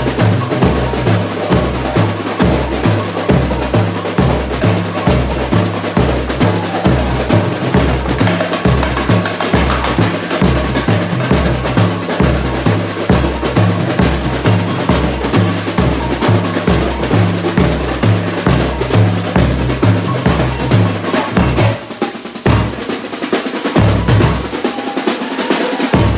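A samba school bateria playing a samba rhythm: bass surdo drums keep a steady beat that alternates between a higher and a lower drum, under snare drums and other hand percussion. About 22 seconds in, the surdos drop out for a few seconds while the higher drums keep playing, then the bass comes back.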